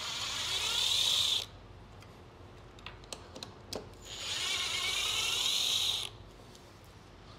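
Power screwdriver running twice, each time for about two seconds, with a few small clicks in between: most likely unscrewing fasteners during the teardown.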